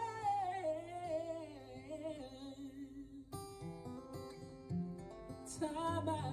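A man singing a long, wavering melodic line to his own acoustic guitar. A little past halfway the voice stops and the guitar plays on alone for a couple of seconds, then the singing comes back near the end.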